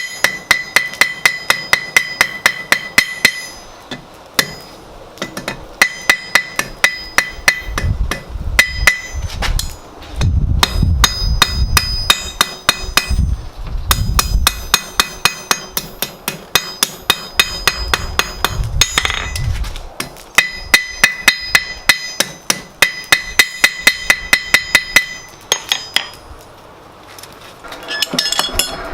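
Hand hammer striking hot wrought iron bar on an anvil in quick runs of about four blows a second, each blow ringing, with short pauses between runs. A low rumble sits under the blows through the middle.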